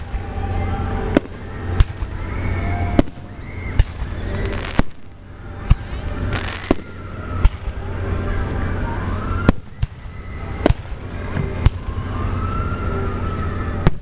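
Fireworks display: about a dozen sharp bangs from aerial shells bursting, spaced unevenly, roughly one a second, over a steady rumble and crowd voices.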